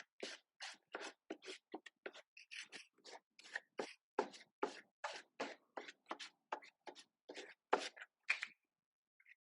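Rhythmic scraping strokes of a hand tool working wood, about two or three a second, stopping near the end.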